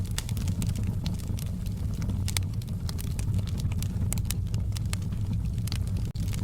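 Wood fire in a fireplace crackling, with frequent irregular sharp pops over a steady low rumble of the flames.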